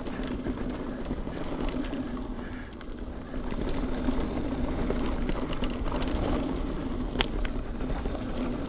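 Mountain bike being ridden along a trail: steady rolling tyre and wind noise with a low hum, and now and then a sharp click or rattle from the bike.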